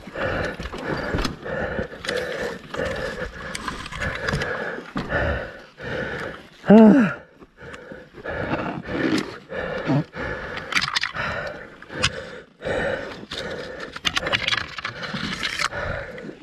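A man panting hard and grunting with effort, with one loud strained groan about seven seconds in, amid knocks and scrapes as a fallen dirt bike is wrestled up among rocks.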